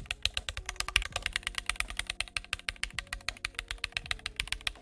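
Rapid keystroke clicks from a mechanical keyboard with Moondrop tactile Tessence switches, about eight to ten sharp clicks a second.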